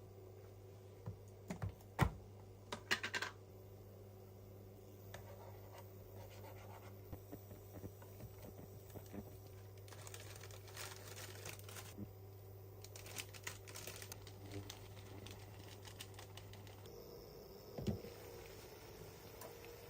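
Quiet kitchen handling sounds: scattered light clicks, taps and rustling over a steady low hum. The hum stops about three seconds before the end, and a sharper knock follows.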